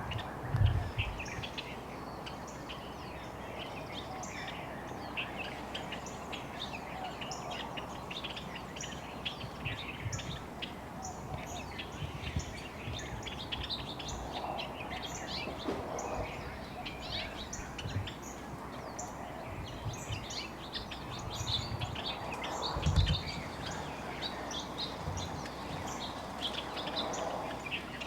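Many small birds chirping, with short high calls overlapping all the way through. Two low thumps stand out, one near the start and one late on.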